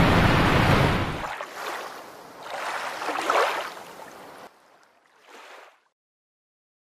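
Waterfall rushing, a loud even roar with a deep rumble that drops away after about a second. A swelling whoosh follows, peaking about three seconds in and fading out, with a brief faint burst before silence near the end.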